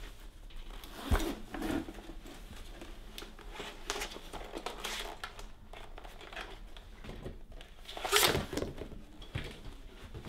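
Clothing and handled objects rustling and crinkling as things are pulled out from inside a jacket, with a sharp thump about a second in and a louder rustle near eight seconds.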